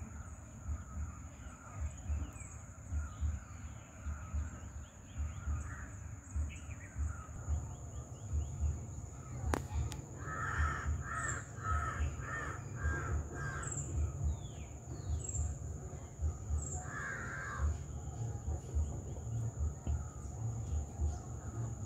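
Crow cawing: a quick run of about six caws, then one more a few seconds later. Under it runs an irregular low rumble and a steady high-pitched whine.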